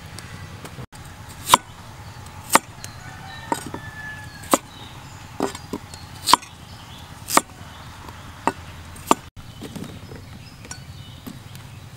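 Steel cleaver chopping peeled white root vegetable on a wooden chopping board: about ten sharp, single chops, roughly one a second and unevenly spaced.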